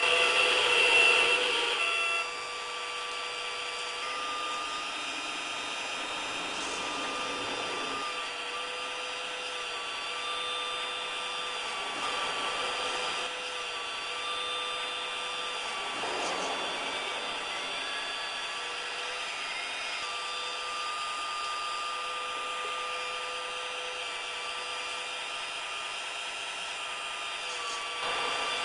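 Small electric motors and gears of a 1/16-scale radio-controlled Caterpillar excavator whining steadily as it works, louder for the first two seconds and swelling briefly a couple of times later.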